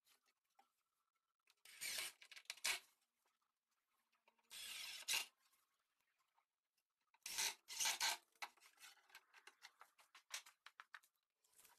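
Cordless drill driving screws into pine to fasten a metal drawer slide: three short bursts of about a second each, with small knocks and clicks between them.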